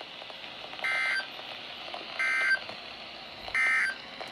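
NOAA Weather Radio's SAME end-of-message code, played through a weather radio receiver: three short electronic data bleeps, each about a third of a second long and about 1.3 seconds apart. The code marks the end of a severe thunderstorm warning broadcast.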